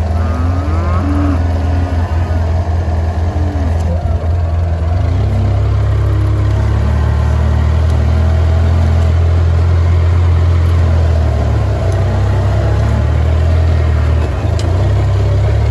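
Side-by-side utility vehicle's engine running steadily, getting a little louder about five seconds in as it pulls away.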